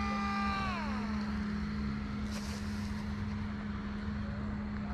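Radio-control model airplane's motor and propeller whine, held steady and then dropping smoothly in pitch and fading about a second in. A steady low hum runs underneath.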